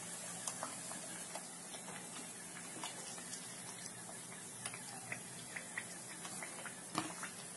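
Mathri deep-frying gently in oil on a medium-low flame: a faint steady sizzle with scattered small pops and ticks, and one sharper click near the end.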